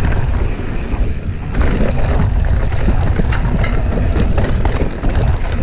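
Mountain bike descending a dirt trail at speed: heavy wind buffeting on the camera microphone over the rumble of the tyres, with frequent sharp clicks and rattles as the bike jolts over bumps.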